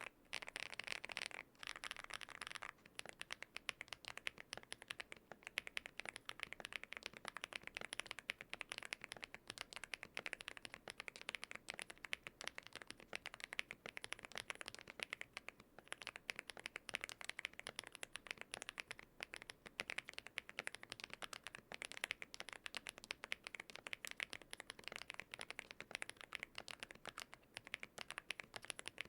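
Fast, continuous typing on an Aula F99 Pro mechanical keyboard with lubed HMX Firecracker switches, foam, tape-mod and polyfill dampening and translucent keycaps: a steady stream of keystroke clacks, louder and denser for the first couple of seconds.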